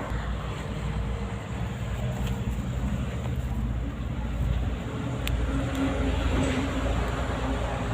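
Low, steady rumble of vehicle traffic passing over the bridge above, with one sharp click about five seconds in.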